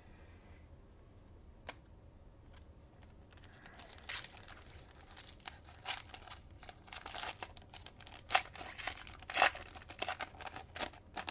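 A Panini Chronicles foil trading-card pack crinkling and tearing as it is opened by hand, a run of sharp crackles starting a few seconds in after a single click.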